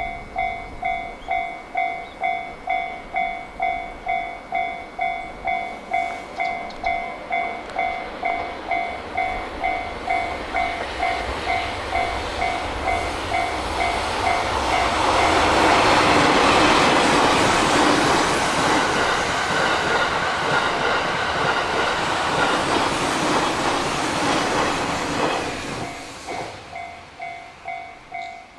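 Japanese level-crossing warning bell ringing in steady electronic dings, about one and a half a second. About 14 seconds in, the E001 series Train Suite Shiki-shima passes with a rising rush of wheel and rail noise and clatter that drowns the bell for about ten seconds. The bell then rings clearly again as the train clears.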